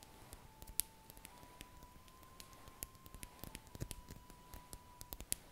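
Fluffy makeup brush stroked over a foam microphone windscreen: soft scratchy rustling with scattered small clicks, over a faint held tone.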